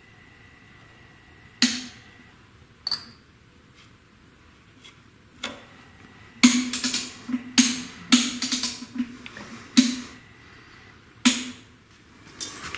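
Sharp, irregular metal clicks and knocks, a few single ones and then a dense cluster about halfway through, as a dial indicator and its mount are moved around a bellhousing bore during a bore runout check.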